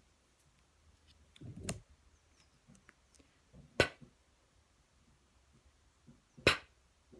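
Quiet room with three sharp clicks, about two to three seconds apart; the first is softer and comes with a dull thump, the last two are loud.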